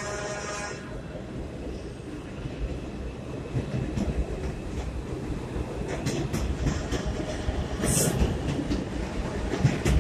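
R142 subway train running, a steady rumble with wheels clicking over the rail joints, growing louder as it picks up speed. A brief high-pitched screech comes about eight seconds in.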